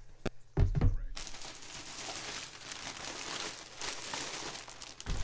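Plastic crinkling and rustling as items are handled and rummaged through, after a few soft knocks in the first second.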